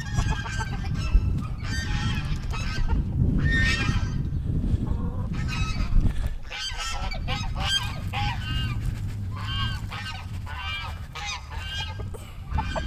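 Several domestic geese honking repeatedly in short, overlapping calls.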